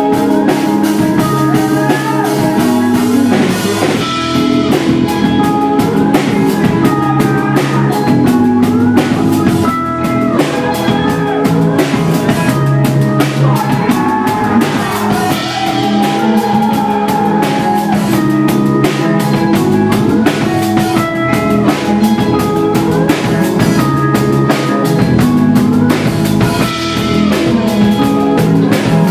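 Live instrumental rock: a double-neck electric guitar plays layered, looped guitar and bass lines over a drum kit's steady beat, with a few sliding notes about halfway through.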